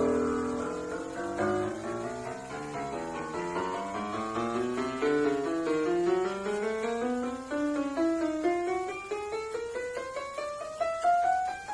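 Casio CPS7 76-key digital keyboard playing a piano voice: a run of notes stepping down in pitch for the first few seconds, then a long scale climbing steadily upward.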